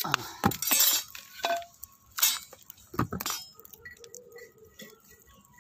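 Metal clinks and clatter of a wire grill rack being handled and set down over a wood fire, with several sharp knocks and a scrape in the first three seconds or so, then quieter.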